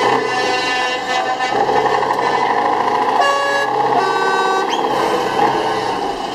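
Truck air horns honking, heard from inside a Scania truck's cab over its running engine. Two clear blasts come in a row a little past halfway, the second at a different pitch.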